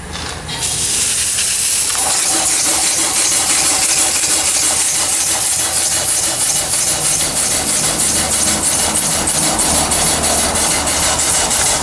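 Stuart 5A steam engine starting up on boiler steam: a loud hiss of steam comes on about half a second in, and the engine settles into an even, quick beat of exhaust chuffs, running at a slow idle while it drives the alternator charging the battery.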